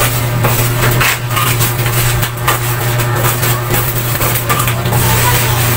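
Black plastic packaging wrap crinkling and rustling as it is cut with scissors and pulled off a cardboard box, a dense run of crackles over a steady low hum.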